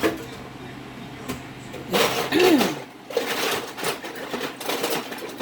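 Ice cubes clattering and rustling in irregular bursts as they are scooped and dropped over live crabs in a container. The loudest burst comes about two seconds in, with a short sound sliding in pitch.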